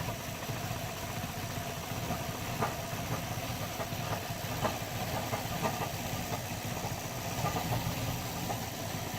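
A 1987 Mercedes 190E 2.0's four-cylinder engine idling roughly and unevenly on natural gas, stumbling as if about to stall. The bad idle comes from a badly adjusted natural gas conversion.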